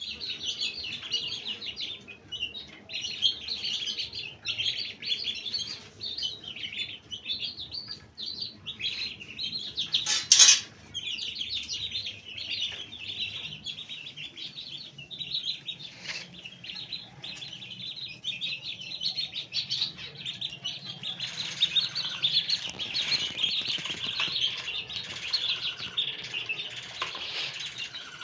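Baby chicken chicks and ducklings peeping, a steady stream of short high-pitched cheeps. A brief loud noise about ten seconds in, and the peeping grows denser and louder in the last several seconds.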